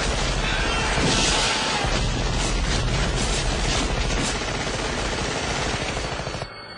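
Sustained automatic gunfire, a long continuous fusillade of rapid shots, in a film soundtrack; it stops abruptly near the end.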